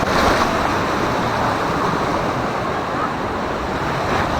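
Steady rush of churning water, with a brief louder splash right at the start.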